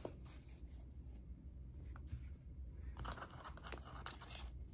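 Faint rustling and a few light taps as a cloth dust bag and a paper card are handled in a cardboard drawer box, with a brief louder rustle about three seconds in.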